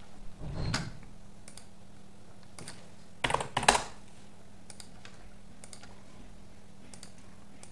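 Computer keyboard and mouse clicks: a few scattered taps, with a quick cluster of four or five clicks a little after three seconds in.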